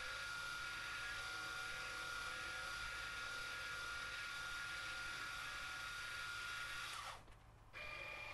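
End mill in a CNC-converted Grizzly G0704 milling machine taking a full-depth finishing profile pass around an aluminum part, with a steady high whine over a cutting hiss. It cuts off about seven seconds in, and a brief, different steady tone follows near the end.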